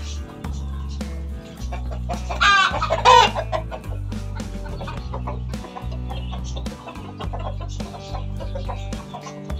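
Light Sussex chickens clucking over background music with a steady bass line. About two and a half seconds in, one bird gives a loud wavering call lasting about a second, the loudest sound here.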